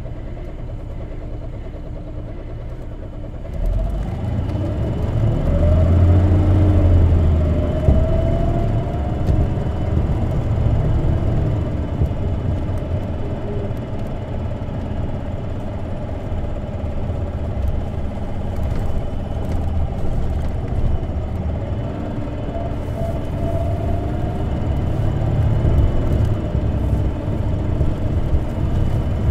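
Isuzu Erga city bus with a compressed-natural-gas engine, heard from inside the cabin. It runs quietly at first. About three and a half seconds in, it picks up with a deeper rumble and a rising whine as it accelerates, then settles into steady running with another rising whine later on.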